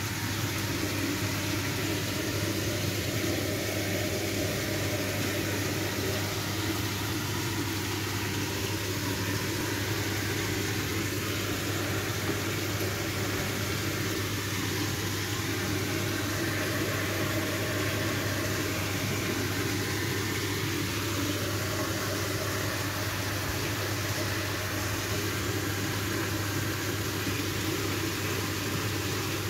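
Steady mechanical hum: an even low drone under a hiss that does not change, as of a motor running.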